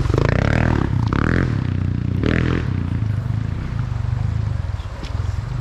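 Dirt bike engine running as the bike rides through a creek crossing close by, with water splashing, and the engine note easing off slightly towards the end.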